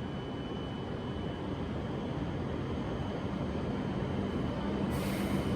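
Hokuriku Shinkansen train beginning to pull out of the platform: a steady rumble slowly building, with a low electric hum coming in about four seconds in and a brief hiss near the end.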